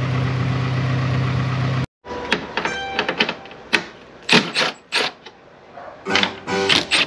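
Air suspension compressor running with a steady hum as it airs up the car, cut off abruptly about two seconds in. A run of sharp clicks and taps follows, and plucked guitar music starts near the end.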